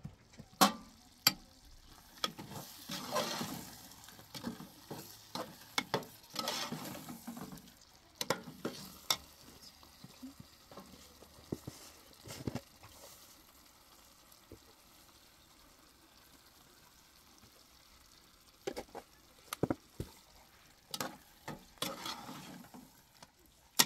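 Scattered clicks and knocks with short scraping, rustling bursts, like things being handled or stirred. It goes quiet in the middle, and the clicks return near the end.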